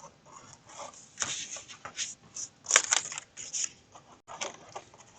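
Folded cardstock being handled and pressed into place, giving irregular paper rustles and crinkles, the sharpest one just under three seconds in.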